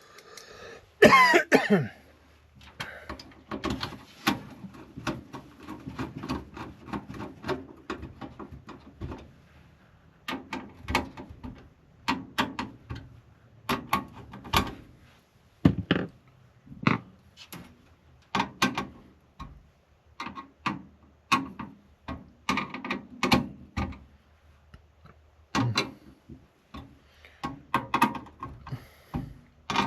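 Irregular clicks and knocks of computer hardware being handled and fitted into a desktop PC case, with a brief, louder sound falling in pitch about a second in.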